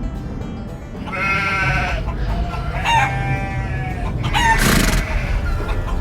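Two long pitched animal calls, each about a second long, over a steady low background, with a short noisy burst near the end.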